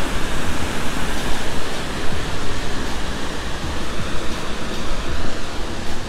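Grand River South East waterfall rushing: a steady, even noise.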